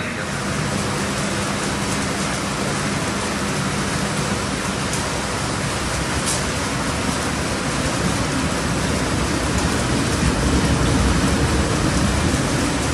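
Steady hiss of rain with the low rumble of a Trenitalia Rock double-deck electric train moving off slowly. The rumble grows a little louder near the end.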